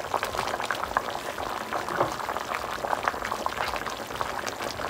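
Seafood gumbo boiling in an enamelled cast-iron pot: a steady run of small bubbling pops.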